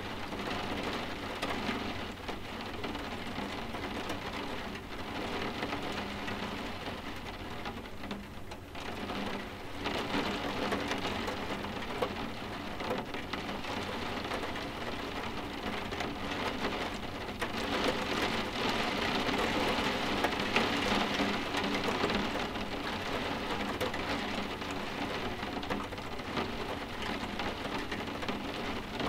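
Steady soft rain tapping on window glass, an even hiss of drops that grows a little heavier for a few seconds past the middle.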